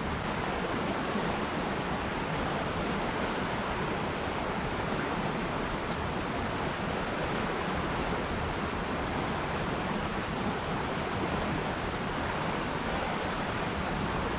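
River water rushing and splashing in a steady, unbroken flow.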